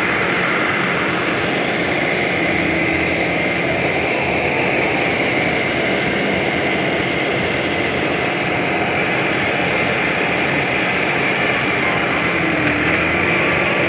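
John Deere 5075E tractor-mounted harvester's diesel engine and machinery running steadily under load while its unloading auger pours grain into a truck: a constant, even mechanical drone.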